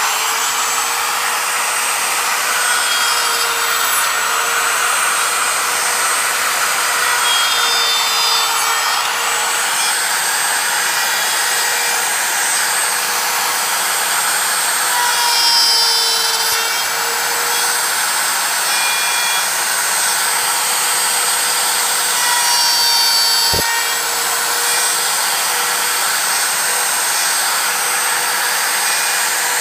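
Handheld router running at full speed with its bit cutting dovetail tails into the end of a wooden board held in a dovetail jig. It makes a steady high whine throughout, and the pitch dips and wavers several times as the bit is pushed into the wood along the template.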